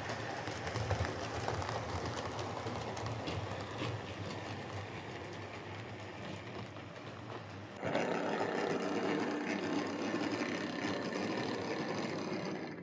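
Hornby M7 OO gauge model tank locomotive running on model railway track: the small electric motor whirs steadily with the wheels clicking along the rails, now running much better after a motor service and a re-centred traction magnet. The sound gets louder about eight seconds in.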